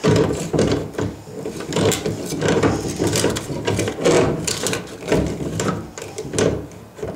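A new quarter-turn washer valve being screwed clockwise onto its threaded fitting in the washer outlet box, giving repeated rubbing and scraping strokes of a tool working the valve.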